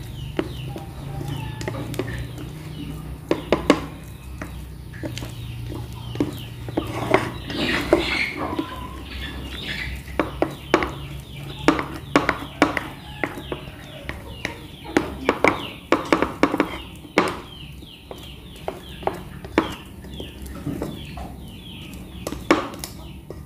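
A spatula stirring and folding sticky dough in a glass bowl, with repeated sharp knocks and scrapes against the glass. Short falling clucking calls come and go behind it.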